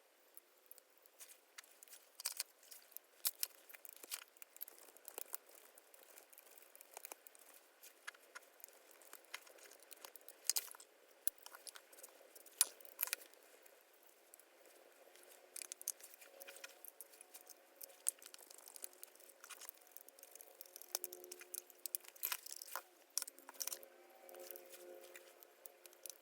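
Scattered light clicks and taps, as of small parts being handled on a bench, irregular throughout. Faint steady tones come in during the second half.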